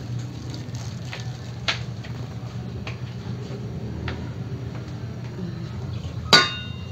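A few light clicks and knocks over a steady low hum. Near the end a loud metallic clang with a short ring, as a metal cooking pot is struck by a spoon.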